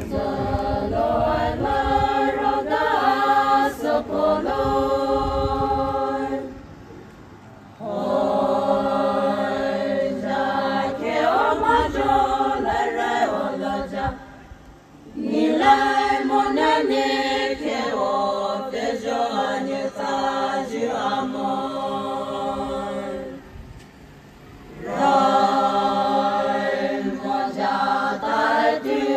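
A group of voices singing a traditional Naga festival chant together, in long held phrases of about seven seconds each, with short pauses between them.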